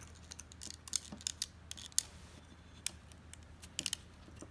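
Light clicks and ticks of 8mm film and the metal parts of a Revere 88 camera being handled as the film is threaded into the film gate, in small clusters about a second in and again near the end.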